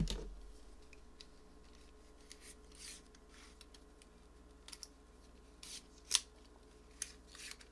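Scattered light clicks and rustles of tools and probe leads being handled on a workbench, with a thump at the start and the sharpest click about six seconds in, over a faint steady hum.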